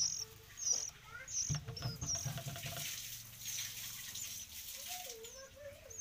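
Sooty-headed bulbul (kutilang) nestlings begging with short, high chirps, repeating about every two-thirds of a second and stopping a little after two seconds in. A faint hiss and rustling follows.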